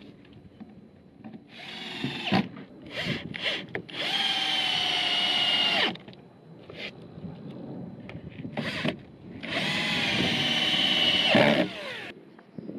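A 12 V cordless drill/driver running in bursts, driving screws into wall panels. Several short bursts are followed by two longer runs of about two seconds each, around four and ten seconds in, with the whine sinking slightly in pitch.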